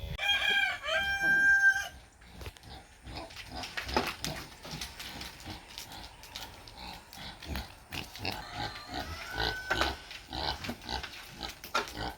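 Farm animal sounds: a loud two-part high call with a steady pitch lasting about two seconds at the start, then scattered short grunts and rustles, with another brief rising call about nine seconds in.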